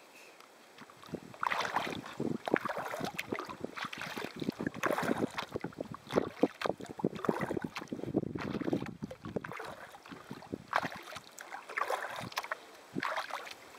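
Kayak on the water: irregular paddle splashes and water sloshing against the hull, starting about a second in.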